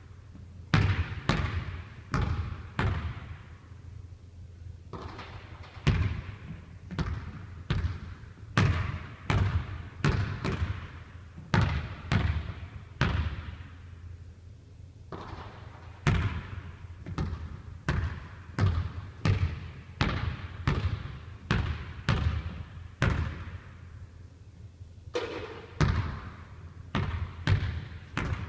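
Basketball bounced on a hardwood gym floor, about one to two bounces a second in runs with short pauses between them, each bounce echoing around the gym.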